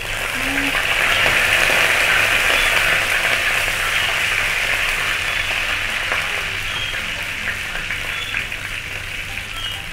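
Fresh curry leaves spluttering and crackling in hot oil with dry red chillies in a wok, the tempering for a Kerala fish curry. The sizzle starts suddenly as the leaves go in, is loudest in the first few seconds, then slowly dies down while they are stirred.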